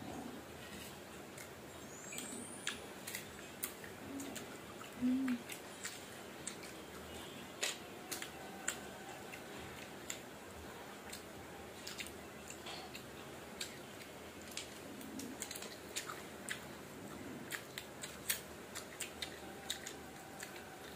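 Close-up eating sounds of mango being chewed, with scattered sharp wet mouth clicks and smacks throughout. A brief low hum comes about five seconds in.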